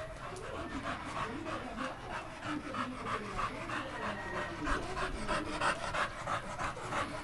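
American pit bull terrier panting hard and fast close up, an even rhythm of about four breaths a second that grows a little louder in the second half.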